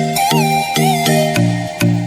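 Background music: a quick, bouncy line of short pitched notes, about three a second, over crisp percussive ticks.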